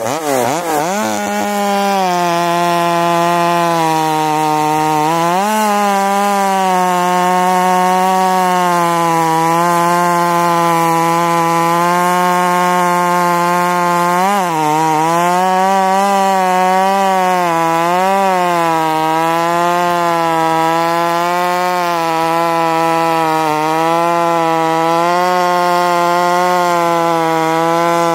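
Ported Joncutter 5800 chainsaw, a 58cc two-stroke, running at full throttle under load as it crosscuts a log. Its pitch drops in the first second as the chain bites, then holds steady through the cut, rising briefly a few times as the load eases.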